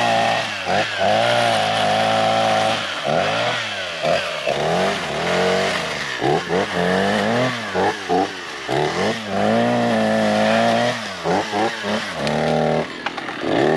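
Chainsaw engine being revved up and dropped back over and over, as in cutting brush, with short dips between throttle bursts.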